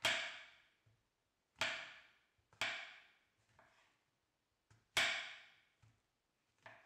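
Kitchen knife slicing button mushrooms on a wooden cutting board: about six sharp knocks at uneven intervals as the blade goes through and strikes the board, each fading quickly.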